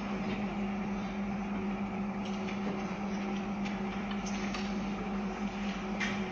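Hall room tone in a pause in the music: a steady low hum over hiss, with a few faint rustles and ticks.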